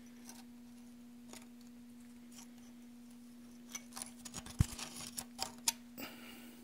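Needle-nose pliers reaching into a freeze-plug bore in an engine block: a cluster of small metallic clicks and scrapes starting a little past halfway, with one sharp click among them, over a faint steady hum.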